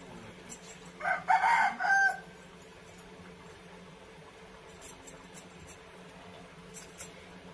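A rooster crows once, about a second in, the call lasting about a second and ending on a held note. A few faint clicks follow later.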